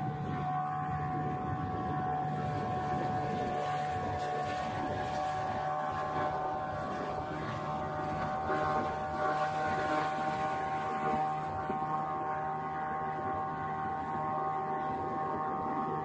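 Motorboat engine running at a steady speed, a constant drone with a steady high tone over it.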